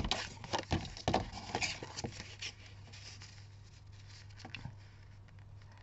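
Slide paper trimmer cutting cardstock and the cut card being handled: a run of short scrapes and clicks over the first couple of seconds, then a couple of faint taps.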